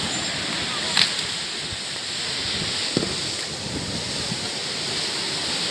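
Steady wash of sea surf against the rocks with wind on the microphone, broken by a sharp knock about a second in and a smaller one about three seconds in.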